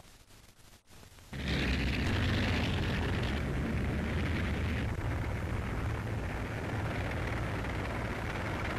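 Battle noise on an old newsreel soundtrack: a loud, steady rumbling noise that starts suddenly about a second in, after faint film hiss.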